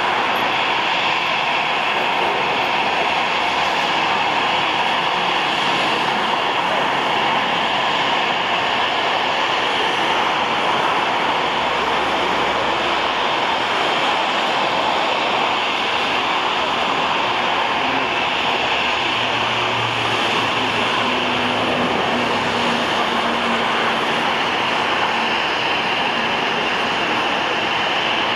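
Jet engines of an Airbus A320-214 (CFM56-5B turbofans) running with a steady, even noise throughout, with faint low hums joining in the second half.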